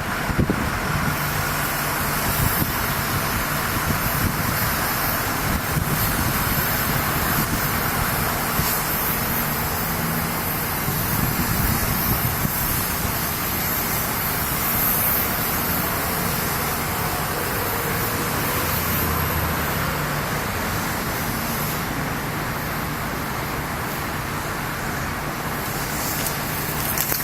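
An engine running steadily: a constant low hum under an even hiss, with no breaks or sudden changes.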